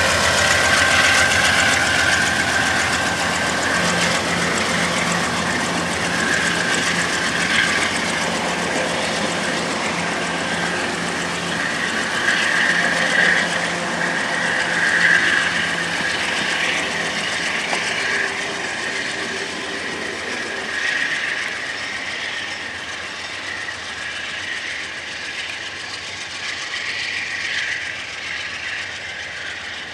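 Amtrak passenger train behind a GE Genesis P42DC diesel locomotive pulling away, its stainless-steel cars clattering over the rail joints. A low steady engine hum drops out a little past halfway, and the whole sound grows steadily fainter as the train draws off.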